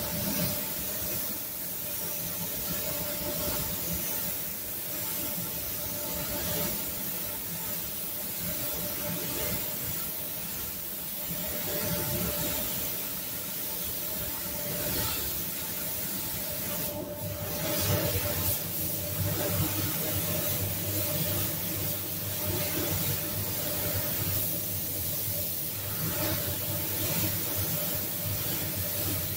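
Compressed-air spray gun hissing steadily as it sprays clear coat onto a car door, over a steady hum; the hiss breaks off for a moment a little over halfway through.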